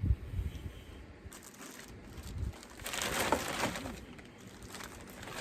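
A low thump near the start, then a bag rustling and crinkling for a couple of seconds, loudest about three seconds in, as yarn skeins are packed into it.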